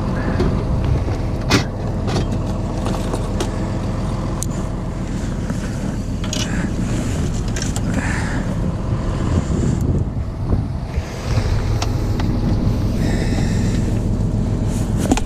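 A fishing boat's engine running steadily as a low, even drone, with a few sharp clicks and knocks scattered over it.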